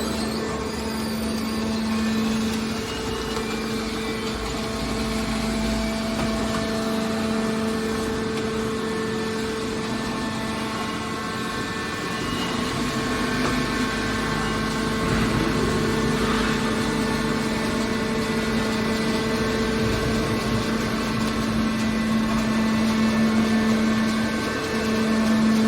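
Metal baler's hydraulic power unit running, a steady machine hum holding one pitch.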